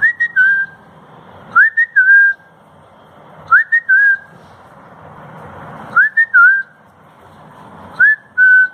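A person whistling a short two-note call to the puppy, five times at roughly two-second intervals. Each call is a quick upward-sliding note followed by a slightly lower held note.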